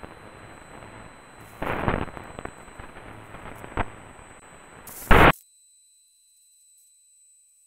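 Thunderstorm lightning static on an AM radio receiver: a steady hiss of atmospheric noise broken by a loud crackling crash about two seconds in, a sharp click near four seconds, and the loudest crash just after five seconds, after which the sound cuts off abruptly.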